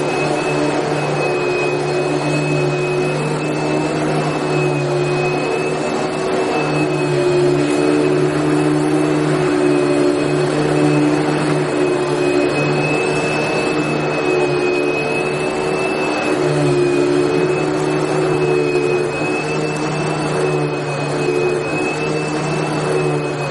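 Vacuum cleaner running continuously: a steady motor whine with a high, steady tone over a dense rush of air, with no change in speed.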